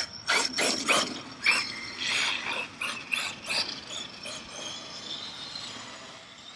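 Traxxas Sledge RC truck's drivetrain clattering, with a quick run of clicks and knocks over the first few seconds, then its high motor and gear whine fading away.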